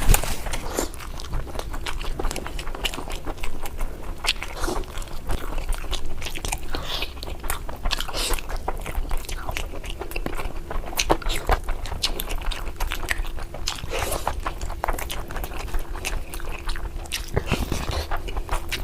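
Close-miked chewing and biting of curry: irregular wet smacks and small clicks of a mouth eating, continuing throughout.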